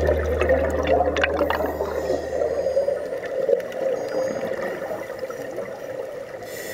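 Underwater bubbling and gurgling of a scuba diver's exhaled air from the regulator, heard through the camera housing, with crackling bubble clicks densest in the first second or so. A low tone fades away over the first three seconds.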